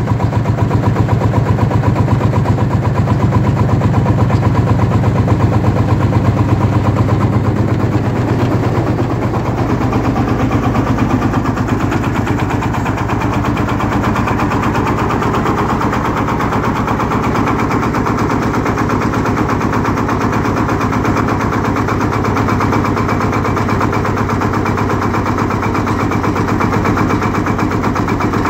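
1946 Field Marshall Series 1 tractor's single-cylinder two-stroke diesel engine running at a brisk tick-over, a steady rapid beat, a little quieter after about eight seconds. It is being run in after a rebuild to bed in a new big-end bearing and piston rings.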